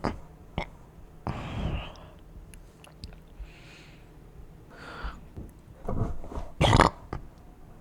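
A person's burps muffled into a plush toy: a longer one a little after a second in and a short, louder one near the end, with a few fainter sounds between.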